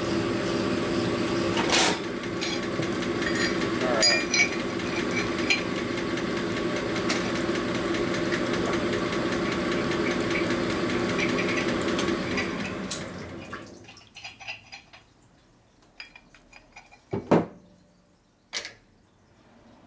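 Connecting-rod honing machine running with the stone in the rod bore: a steady mechanical hum with a grinding rasp and scattered ticks, which winds down and stops about thirteen seconds in. A few sharp metallic clinks follow near the end.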